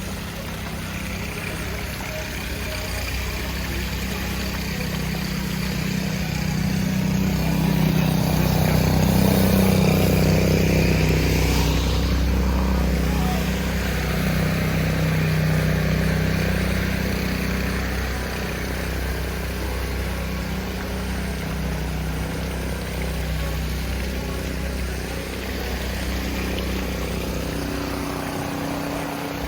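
A vehicle engine running close by with a low, steady hum that grows louder toward the middle, loudest about ten seconds in, then eases off, over a constant wash of street noise.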